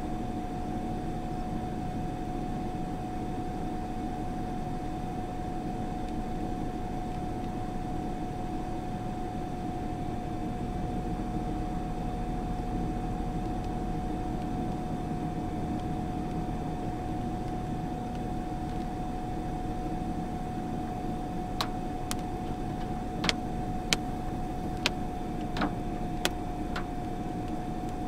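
Steady hum and hiss inside a stopped car, with a constant high-pitched whine running through it. From about 21 seconds in come a handful of scattered sharp taps on the car's glass.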